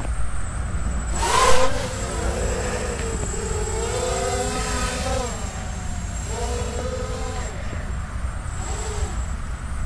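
Hexacopter with six 1806 2280 kV brushless motors in flight, its motors and propellers whining, the pitch rising and falling with throttle. The loudest surge comes about a second and a half in.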